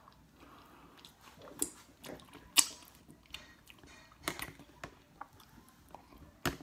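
A person eating chicken and rice close to the microphone: chewing and mouth smacks, with scattered clicks as a fork and fingers work food in a plastic takeout container. The sharpest click comes about two and a half seconds in.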